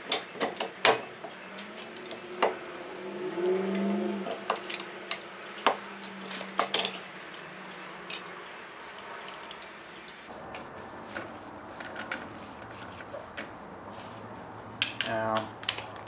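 Irregular metallic clicks and clinks of lug nuts and a wrench against the wheel studs as the alloy wheel is refitted to the front hub, busier in the first half. A low steady hum comes in about two-thirds of the way through.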